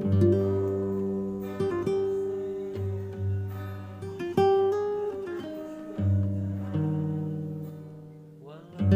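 Background music on acoustic guitar: notes and chords plucked and left to ring out.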